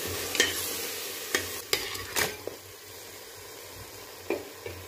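Thick spice masala frying in oil in a steel pot, sizzling steadily while a metal spoon stirs and scrapes it, with four sharp knocks in the first half. The sizzle goes quieter for the second half.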